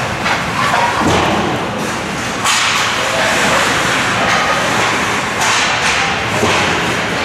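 Ice hockey play: repeated sharp thuds and clacks of sticks, the puck and players hitting the boards and the ice, over a steady hiss of skates on the ice in the echoing rink.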